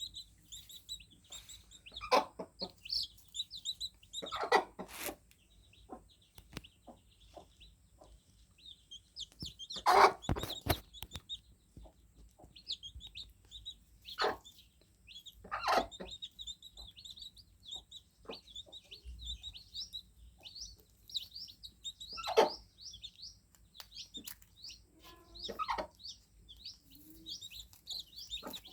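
Young chicks cheeping: a constant busy stream of short, high peeps. Louder, lower short sounds break in every few seconds, the loudest about ten seconds in.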